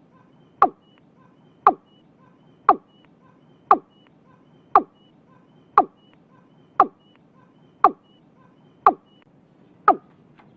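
Watercock (cúm núm) calling: a steady series of short, abrupt notes, each dropping quickly in pitch, about one a second. Faint short higher notes come in between.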